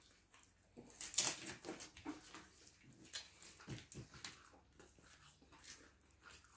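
Fingers mixing rice on a steel plate: soft, irregular scrapes, squishes and small clicks, with a few short low pitched sounds near the middle.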